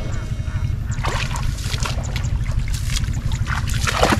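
Water splashing and sloshing as someone wades and gropes by hand in a flooded rice field, with short splashes about a second in and near the end, over a steady low rumble.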